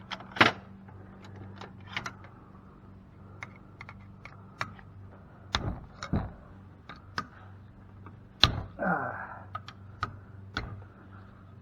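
Irregular clicks and knocks of hand tools and metal parts being handled while a cast aluminum pump is taken apart, with a louder knock about half a second in and another about eight and a half seconds in, over a low steady hum.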